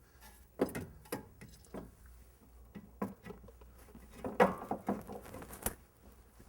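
Irregular knocks, clicks and light rattles of metal parts being handled as a new car suspension strut is fitted up into its upper mount, in two clusters, the louder one in the second half.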